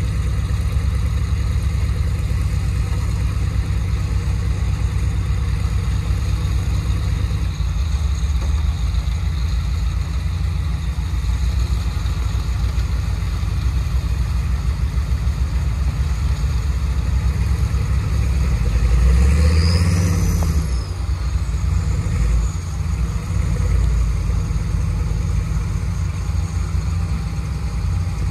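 Square-body Chevy truck engines running steadily under winching load as a stuck truck is pulled out through a snatch block. About two-thirds of the way through, an engine revs louder for a couple of seconds with a brief rising-then-falling whine.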